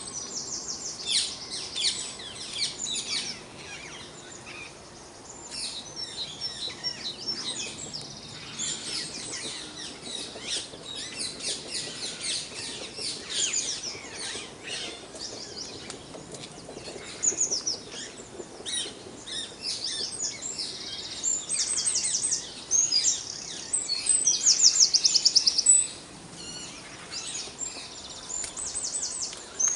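Dawn chorus: many songbirds singing at once, a busy overlapping mix of high chirps and whistled phrases. In the second half several fast, even trills stand out; the loudest lasts over a second.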